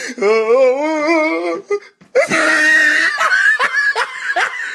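A person's drawn-out vocal wail with a wavering pitch, lasting about a second and a half. After a short break comes a loud yell that turns into quick bursts of laughter.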